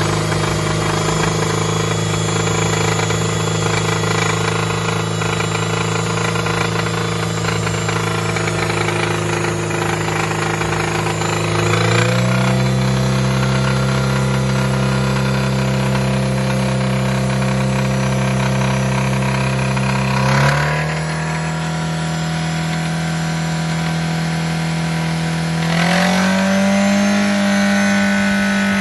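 Toyota MR2 Spyder's 1ZZ-FE 1.8-litre four-cylinder engine held at steady revs that step up about twelve seconds in, drop back about eight seconds later and rise again near the end, with an intermittent knock from the engine that the owner fears is rod knock.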